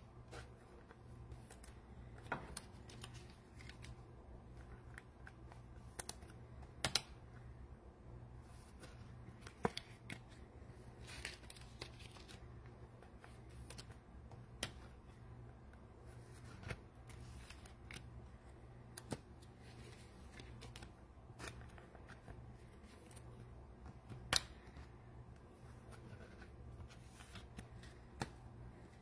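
Faint, scattered clicks and taps, one every second or two, from trading cards and foil packs being handled and set down, over a steady low hum.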